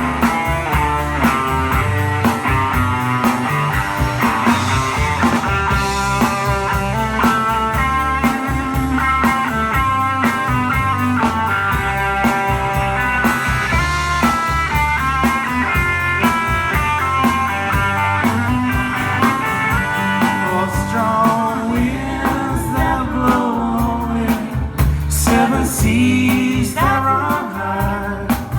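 Live band playing an instrumental break of a country-rock song, guitar to the fore over bass and drums.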